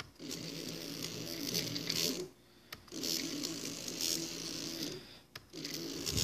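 Stepper motor driven by a CNC Shield V4 board, buzzing in three runs of about two seconds with short pauses between, as the X axis is jogged. It is not turning properly, which the owner puts down to the feed rate being set too fast.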